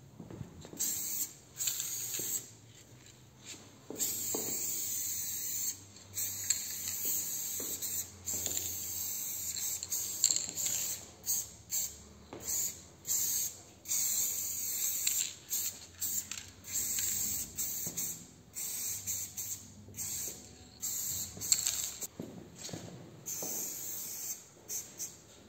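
Aerosol spray paint can hissing in repeated bursts that start and stop abruptly, some shorter than a second and some a few seconds long, as lines are sprayed.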